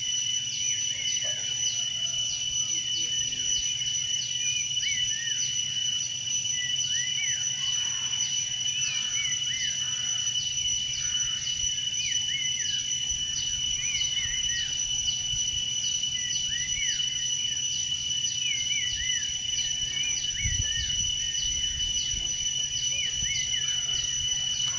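Insect chorus: a steady high-pitched buzzing with a pulsing chirp about twice a second. Short rising-and-falling calls come and go over it.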